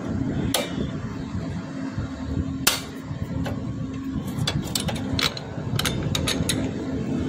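Sharp metallic clinks of a spanner and bolt being worked loose on a motorcycle's rear drum-brake assembly. There are two single clinks, then a quick run of them from about four to six and a half seconds in, over a steady low rumble.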